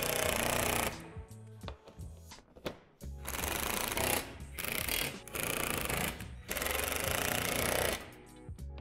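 Cordless impact driver hammering screws through a metal wall support into a plastic shed wall panel: one short run at the start, then longer runs from about three seconds in with a brief pause between them.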